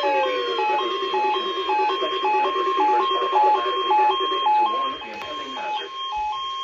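Weather radio receiver alert alarm sounding a high-low two-tone warble, about two alternations a second, set off during a weekly NOAA Weather Radio test. A falling tone fades out in the first second, and a fast low pulsing stops about two-thirds of the way through.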